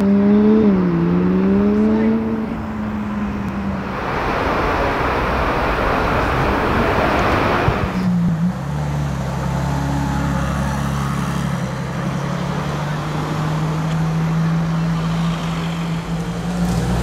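Car engines in street traffic: an engine note wavers up and down at first, then a loud rush of passing-car noise, then an engine running at a steady low note.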